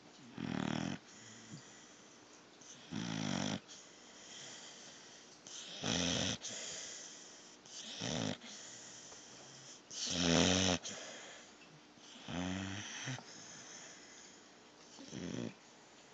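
Pitbull puppy snoring: seven snores at an even pace, about one every two and a half seconds, the loudest about ten seconds in.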